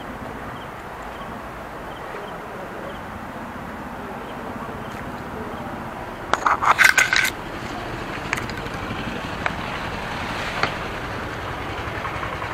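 Tall grass brushing and scraping against a handheld phone, a loud burst of rustling just past halfway through, over a steady background hiss. A few single sharp clicks follow.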